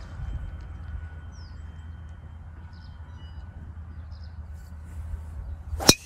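Driver striking a golf ball off the tee: one sharp, loud crack near the end, over a steady low rumble.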